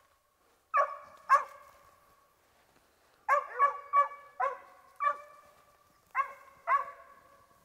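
Mountain cur squirrel dog barking on the chase: about nine sharp barks, a pair near the start, a quick run of five in the middle and a pair near the end, each trailing off in a short echo.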